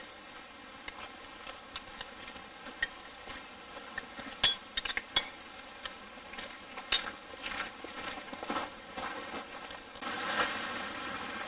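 Camp cookware and utensils clinking and knocking irregularly, with a few sharper clanks around the middle, over a steady soft hiss that grows a little louder near the end.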